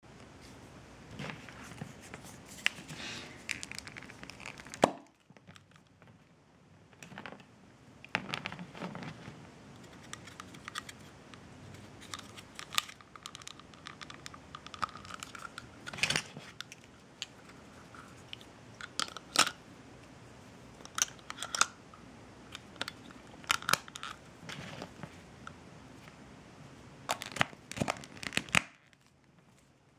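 Handling noise from a Hamleys Squiddy plastic bath toy as it is opened by hand: plastic rubbing and scraping, with many sharp clicks as the body sections are twisted and pulled apart to reach the batteries. The loudest click comes about five seconds in.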